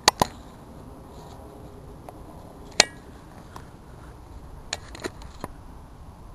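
Scattered sharp clicks and taps from the handling of a homemade pneumatic spud gun and camera: two right at the start, one about three seconds in, and a few close together near the end, over a low background hiss.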